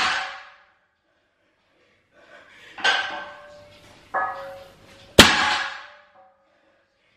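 Barbell loaded with iron plates during deadlift reps. The plates clank and ring as the bar is pulled and lowered, and the bar lands on the rubber floor with a sharp clang at the start and again about five seconds in.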